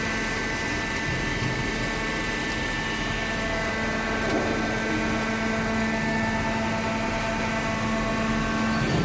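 Hydraulic cardboard baler running, its electric motor and hydraulic pump giving a steady hum with several constant tones over a mechanical rush.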